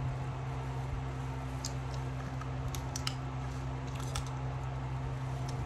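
Eating a seafood boil: about half a dozen short clicks and cracks from shells being cracked and chewed, scattered over a steady low hum from a fan.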